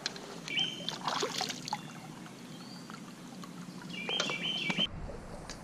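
Shallow stream water moving around a landing net held in the current, with light splashing as a trout is handled in it. A songbird gives a short whistled call twice.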